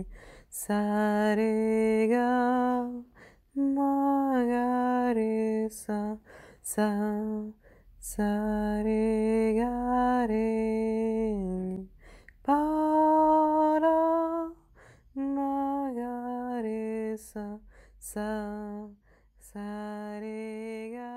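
A single voice singing a slow, unaccompanied melody in held phrases of two to three seconds, with short breaks between them.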